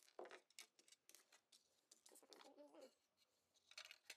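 Near silence, with a few faint clicks and taps of an electronic circuit board and its metal ECU case being handled.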